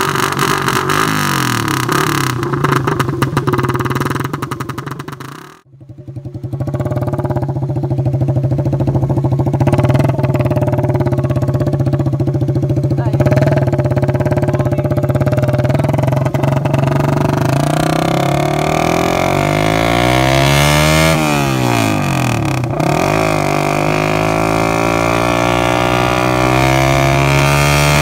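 Suzuki Raider 150 Fi's single-cylinder four-stroke engine running through an open-pipe exhaust with a Vmax elbow. The sound cuts out suddenly about six seconds in, then the engine pulls steadily while riding, its pitch dropping and climbing again about twenty seconds in.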